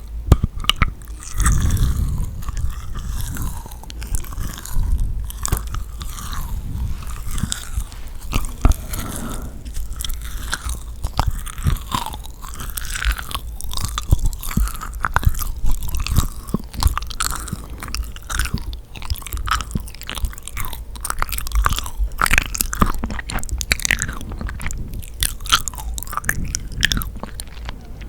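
Close-up ASMR eating sounds of yakgwa, a Korean honey-soaked fried cookie: sticky, wet chewing with soft crunching and frequent small clicks throughout.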